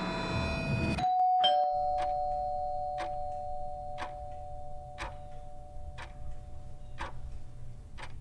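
Two-tone doorbell chime, a ding-dong about a second in, its two notes ringing on, followed by a clock ticking about once a second.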